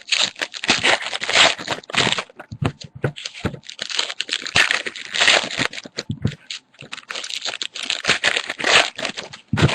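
Baseball card pack wrappers crinkling and tearing as packs are opened, with a dense run of irregular crackles.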